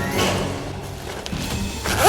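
Background music with steady sustained low notes, with a brief whoosh just after the start and a louder sudden noisy hit at the very end.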